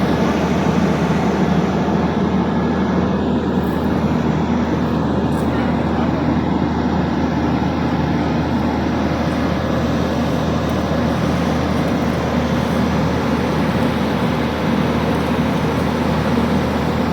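Excavator's diesel engine running steadily at a constant speed, a loud even drone.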